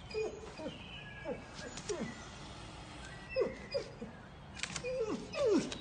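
Dog whining: a string of short whimpers, each dropping in pitch, about two a second.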